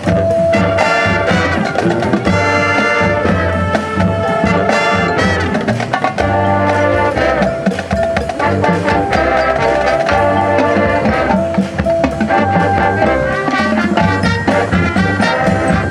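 High school marching band playing: brass (trumpets and trombones) holding and moving through sustained chords over drumline percussion.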